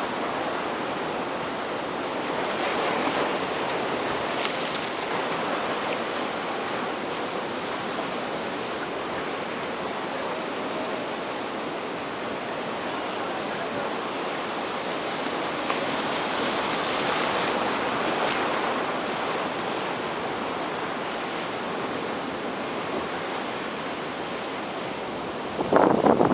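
Ocean surf from a typhoon swell: a steady wash of breaking waves that swells louder about three seconds in and again around sixteen to eighteen seconds. A couple of loud, short bumps come right at the end.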